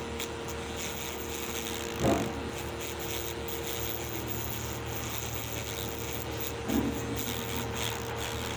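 Small battery-powered DC motor spinning a sandpaper disc, running with a steady hum while the disc rasps against a piece of white cement. A brief louder scrape comes about two seconds in.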